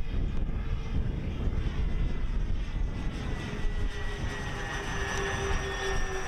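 Twin electric motors and propellers of an RC P-38 Lightning model plane flying overhead. A steady whine comes in about three seconds in and sinks slightly in pitch, over a gusty wind rumble on the microphone.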